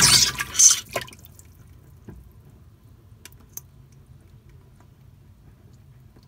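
Pond water splashing as a young green anaconda strikes and seizes a rat from the water: one loud splash in the first second, then a few faint drips.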